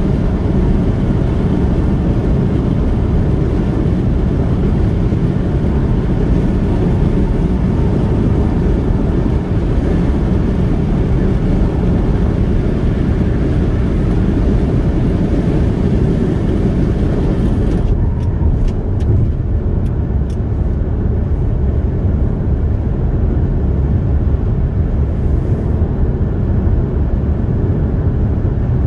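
Car cruising on a highway: steady tyre and road noise with engine drone, a loud low rumble. About two-thirds of the way through the high hiss drops away sharply, with a few brief ticks just after.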